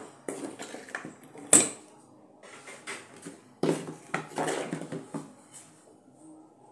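Yellow plastic housing and metal parts of a DeWalt DWD502 drill being handled and set down on a hard bench while it is taken apart: scattered clicks and knocks, a sharp click about a second and a half in, and a run of knocks and rattles around four to five seconds in.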